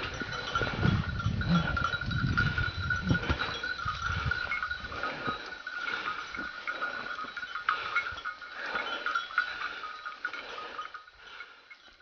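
Bells clanking and jangling on hunting dogs as they push through scrub. Low rustling of brush and footsteps sits under the bells for the first few seconds, and the bells fade toward the end.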